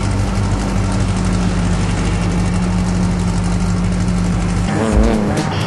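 Off-road race truck engine running at a steady, unchanging pitch. Near the end it cuts abruptly to music with heavy bass beats.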